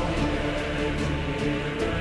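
Background music with sustained notes and a steady bass line.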